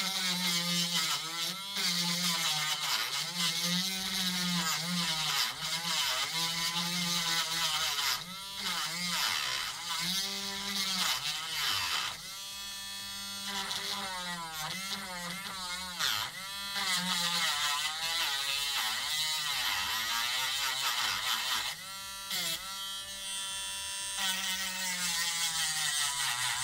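Small handheld rotary tool with a cheap, blunt grinding bit whirring as it grinds into a miniature's face, its pitch sagging and picking up again over and over as the bit is pressed in and eased off. It stops right at the end.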